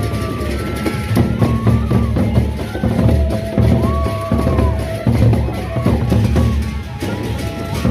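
Sasak gendang beleq ensemble playing: large double-headed barrel drums beaten in a fast, dense rhythm with clashing cymbals, and a few long held melody notes above.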